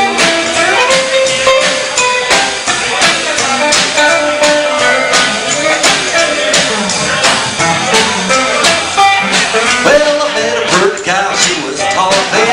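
Small country boogie band playing an instrumental break: guitar and steel guitar lines over upright bass and a steady drum beat.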